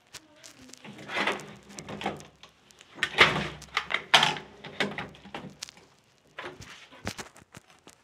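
Knocking, clattering and scraping of a washing machine's metal and plastic panels and parts being handled, with a run of sharp knocks and two louder scraping stretches, about a second in and from about three to four seconds in.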